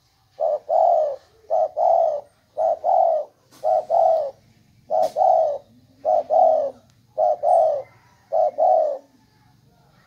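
Spotted dove cooing: a steady run of about eight two-part coos, a short note followed by a longer one, roughly one a second.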